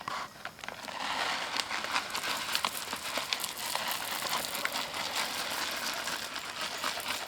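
Plastic bag of apple-flavoured attractant pellets crinkling as the pellets are shaken out and scattered, with many small ticks of pellets landing.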